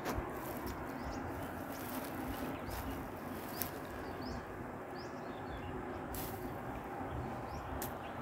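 Riverside outdoor ambience: a steady low rumble with a few short, high bird chirps and scattered light clicks.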